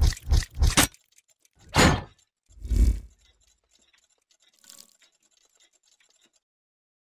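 Sound effects for an animated mechanical-gear logo intro: a quick run of metallic clanking hits in the first second, then two swelling whooshes, the second ending in a deep booming hit, and a faint shimmer a couple of seconds later.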